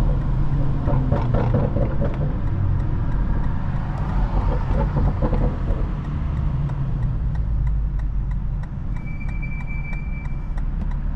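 BMW 435i's turbocharged N55 inline-six running at a steady cruise, with tyre and road noise; the drone eases a little about halfway through.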